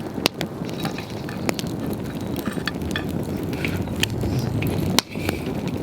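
Wood campfire crackling, with sharp pops about a third of a second in, near a second and a half and about five seconds in, and smaller ticks between, over a steady low noise of the burning fire.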